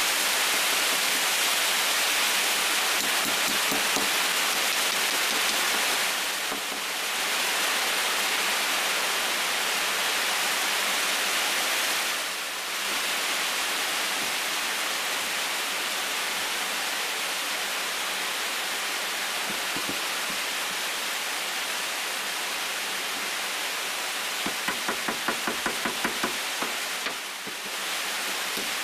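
A steady, loud, even hiss with no pitch, dipping briefly three times. Near the end comes a quick run of about eight even taps, roughly four a second.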